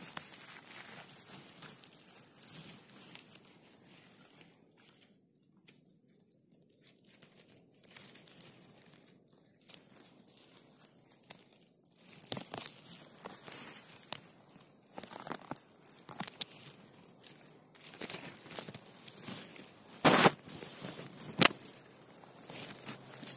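Dry conifer needles and forest litter rustling and crackling as a hand brushes and handles them close to the microphone. The crackles come irregularly and are loudest about twenty seconds in.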